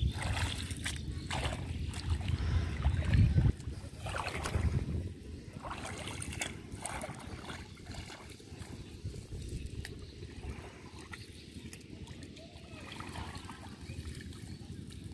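Shallow muddy water sloshing and splashing as hands and legs stir it and pull up water hyacinth, in many short irregular splashes. A heavy low rumble fills the first three and a half seconds, then drops away.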